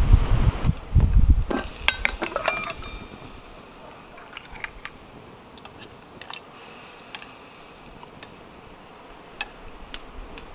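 Stainless steel billy can and its lid clanking, with a few sharp metallic clinks that ring briefly between about one and a half and three seconds in, followed by scattered light clicks as the pot is handled. Wind rumbles on the microphone at the start.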